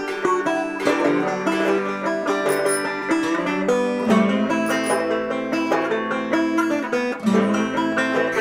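Background music: a lively tune of quickly picked plucked-string notes.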